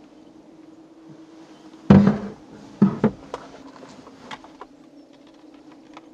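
Handling noises inside a car: a dull knock about two seconds in and two more around three seconds, then a few light clicks, over a steady low hum.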